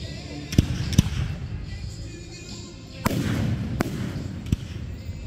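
Aerial fireworks shells bursting: two sharp bangs about half a second apart near the start, a heavier boom about three seconds in followed by a crackling rumble, then a couple more sharp bangs.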